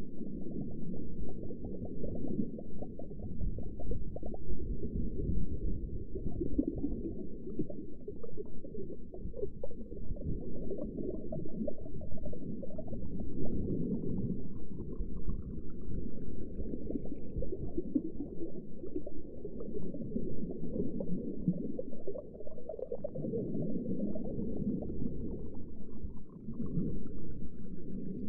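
Underwater ambience: a steady, muffled low rumble with bubbling and gurgling that swells and fades in slow waves. Faint rising whistles come in twice, once about halfway through and once near the end.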